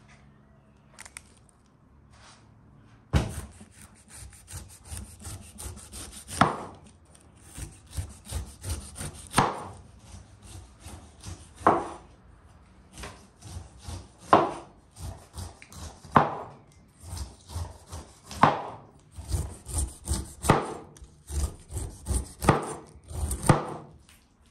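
Large kitchen knife sawing through the tough skin of a whole pineapple on a wooden cutting board: quick rasping strokes with a louder knock every two to three seconds.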